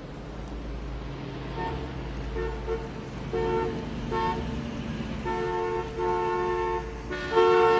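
Car horns honking over a low traffic rumble: short toots start about a second and a half in, then come longer and more often, ending in sustained blasts.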